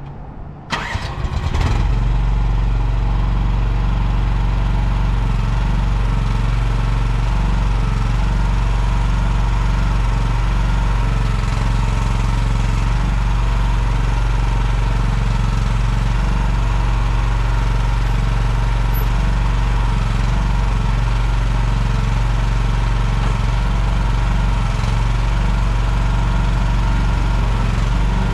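Engine of a 2024 MIVA VA13C mini excavator starting about a second in, then idling steadily at an even pitch.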